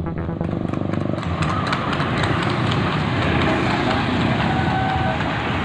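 Steady outdoor street noise with traffic and a constant busy clatter.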